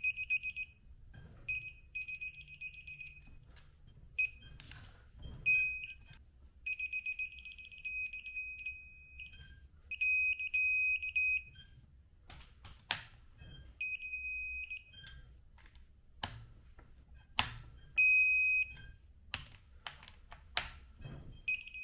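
Digital torque wrench beeping in repeated high-pitched bursts while bolts are tightened to 20 newton-metres in a crisscross, with short clicks between the beeps.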